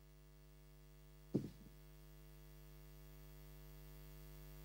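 Steady electrical mains hum in the sound system, slowly growing louder, with one brief short sound about a second and a half in.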